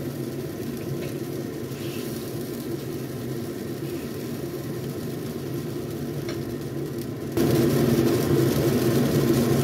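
Beef and water cooking in a wok over a gas stove flame: a steady low rumble with light sizzling, which steps up abruptly in loudness near the end.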